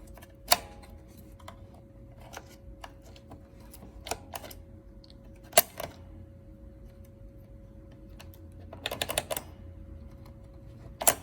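Scattered metallic clicks from an electromechanical pinball backbox mechanism being worked by hand: a few single clicks, a quick flurry of clicks about two-thirds through and a last sharp click near the end. The unit is so sticky with old grime that it won't step properly. A faint steady hum runs underneath.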